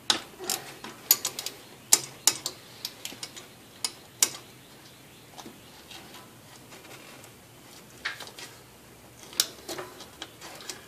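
Hand ratchet wrench clicking and metal tools clinking in short, irregular runs of sharp clicks as a bolt is worked loose in the engine bay.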